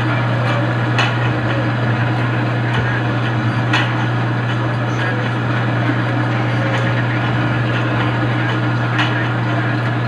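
A steady low hum over a constant noisy background, with a few faint knocks.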